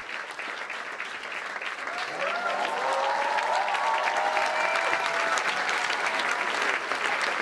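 Live audience applauding, the clapping growing louder about two seconds in as cheering voices join in.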